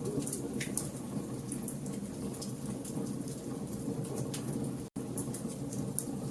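Wood campfire burning, with frequent sharp crackles and pops over a steady low rumble of the flames. The sound cuts out for an instant about five seconds in.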